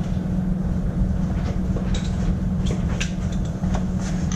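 Steady low drone of workshop machinery, with scattered light clicks and knocks of metal parts and tools being handled in the second half.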